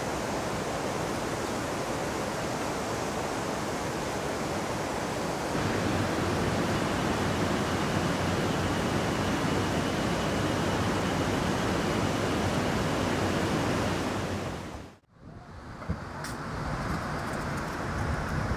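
Steady outdoor rushing noise with no animal calls. It grows louder about five and a half seconds in and drops out briefly about fifteen seconds in.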